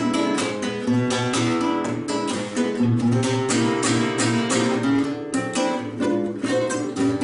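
Solo acoustic guitar playing the instrumental interlude of a bolero, a quick picked melody over low bass notes.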